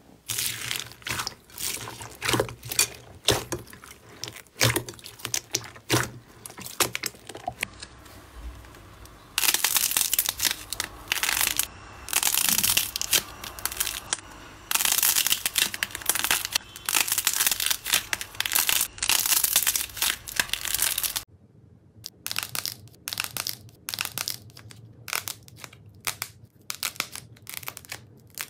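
Slime being squeezed, poked and pulled by hand, crackling, popping and tearing in quick bursts, with long stretches of continuous crackle in the middle. About twenty seconds in the background hush drops away and sharper, separate pops follow.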